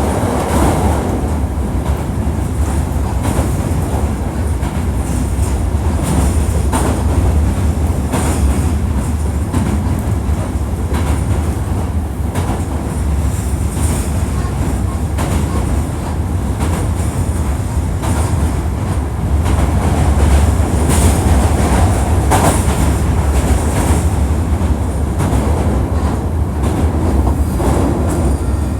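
Hankyu 1300 series electric train running at speed, heard from inside the car: a steady low rumble with wheels clicking over rail joints.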